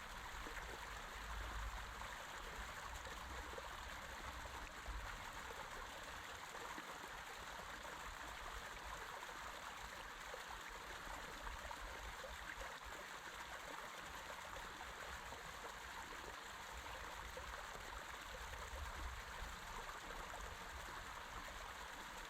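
Creek water running steadily, with a low rumble coming and going underneath.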